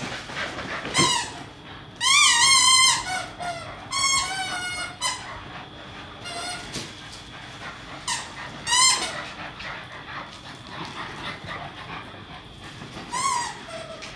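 Staffordshire bull terrier chewing a squeaky dog toy: the squeaker lets out repeated bursts of squeaks with a quickly wavering pitch. The loudest burst comes about two seconds in.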